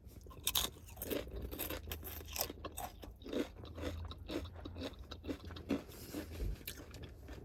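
Close-up crunching and chewing of a mouthful of Subway's Doritos Nachos Footlong: crisp, irregular crunches of the Doritos tortilla chips between the teeth.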